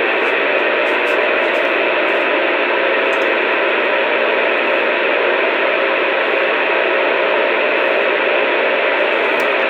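Two-way radio receiver putting out a steady hiss of static, narrow and tinny like radio audio, cutting in suddenly at the start and holding evenly throughout.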